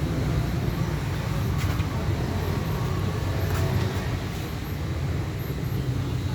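A motor vehicle's engine running steadily with a low rumble, with a couple of faint clicks.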